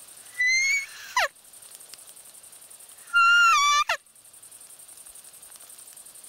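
Roe deer call (a hunter's mouth lure) blown twice, about half a second and three seconds in. Each call is a squeaky whistle held for well under a second, then a sharp downward swoop. It imitates a doe's fiep, used to draw a rutting roe buck.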